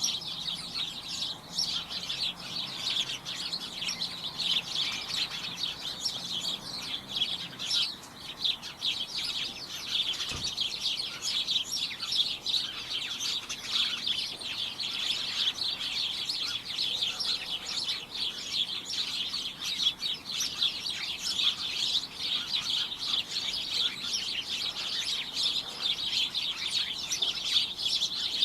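A flock of small birds chirping continuously, many overlapping high, rapid chirps in a dense chatter.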